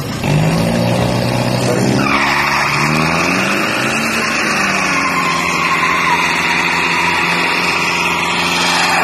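Toyota Fortuner turbodiesel SUV doing a burnout: the engine revs up, and about two seconds in a loud tyre squeal starts and holds steady over the engine as the rear tyres spin and smoke, heating them before a drag launch.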